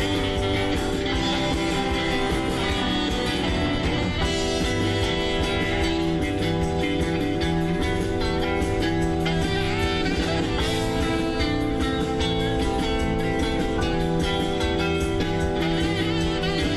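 Live rock band playing an instrumental passage in surf-rock style: electric guitar, electric bass and drums, with keyboards.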